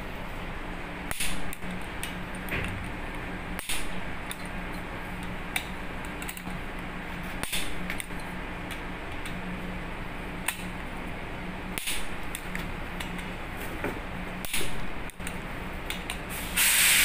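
A long torque wrench working the bolts on a fuel-pump flange, giving sharp metallic clicks and knocks every second or few seconds, with a louder rattle near the end. A steady low machinery hum runs underneath.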